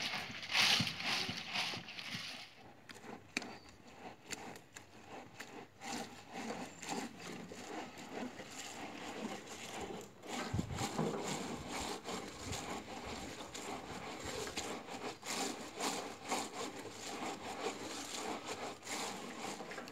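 Dry firewood branches clicking, cracking and scraping against one another in an irregular patter, with a brief hiss in the first two seconds.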